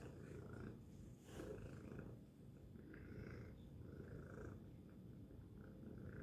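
Domestic tabby cat purring, a low steady rumble.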